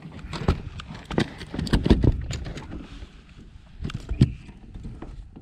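A landed bass flopping on the carpeted deck of an aluminium fishing boat, giving a string of irregular thumps and knocks as it is handled and picked up.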